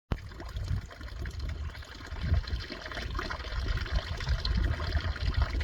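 Spring water trickling steadily, with uneven low rumbling on the microphone.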